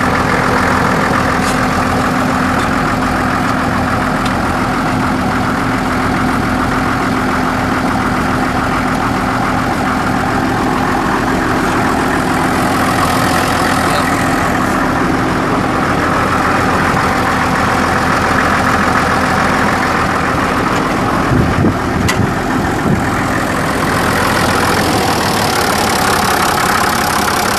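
Case 930 tractor's 6.6-litre six-cylinder diesel engine idling steadily, with a few brief low thumps a little past the two-thirds mark.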